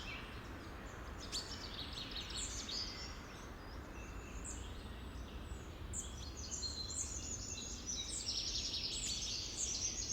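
Natural ambience of many small birds chirping, short high falling notes repeated over and over and growing busier in the second half, over a steady low background hiss.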